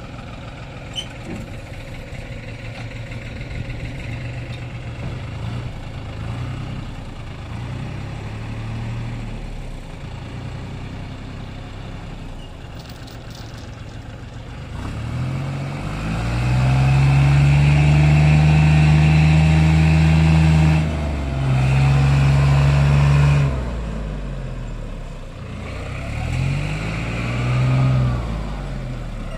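A vehicle engine running at low revs, then revved hard and held for several seconds about halfway through, with a brief dip, before dropping back. It revs up and down once more near the end, straining to get a vehicle stuck in mud moving.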